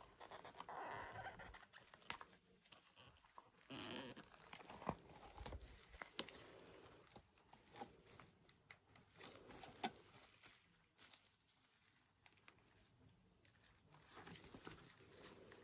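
Faint rubbing and crinkling of a silicone mould being flexed and peeled off a cured epoxy resin casting by nitrile-gloved hands, with scattered sharp clicks.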